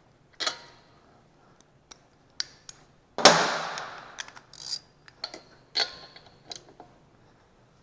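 Steel hand tools clinking as spark plug sockets are swapped on a ratchet and extension: scattered sharp clicks and small clinks with a brief metallic ring. The loudest is a single clank about three seconds in.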